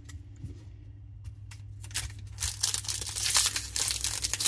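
Foil wrapper of a Topps 2024 Series 1 baseball card pack being crinkled and torn open, a dense crackle that starts about halfway through. It follows a few light clicks of cards being handled.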